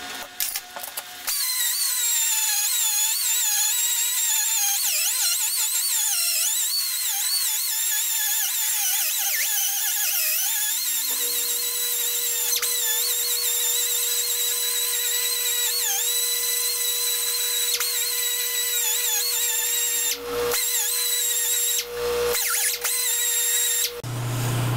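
Die grinder with a half-inch rotary burr running at high speed and grinding a cast-iron steady rest casting, its whine wavering in pitch as the burr is pressed on and eased off. It starts about a second in, drops out briefly twice near the end, then stops.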